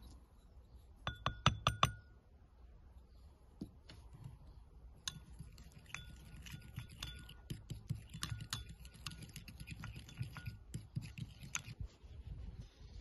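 Metal spoon stirring in a small glass bowl, clinking against the glass with short ringing tones: a quick run of taps about a second in, then repeated clinking for about six seconds from midway.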